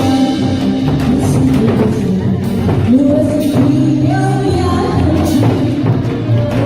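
A singer performing with musical accompaniment, holding long notes that slide between pitches over a steady beat.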